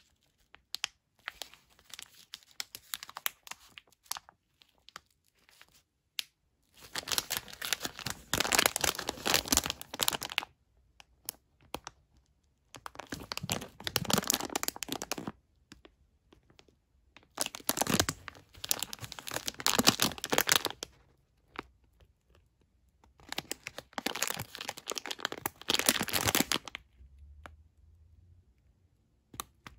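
Plastic wrapper of a fruit-snack pouch crinkling as it is handled and turned over in gloved hands. The crinkling comes in four bouts of a few seconds each, with faint clicks and rustles between.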